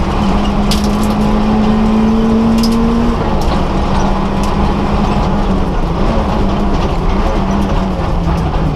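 Citroën AX rally car's four-cylinder engine heard from inside the cabin under hard driving on a stage: the engine note holds and climbs slightly, drops suddenly about three seconds in, then wavers up and down. A few sharp clicks come through over the engine and road noise.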